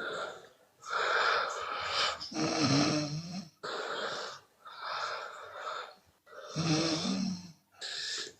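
A woman snoring with her mouth open: a run of airy breaths in and out, two of them, about four seconds apart, with a low rattling snore.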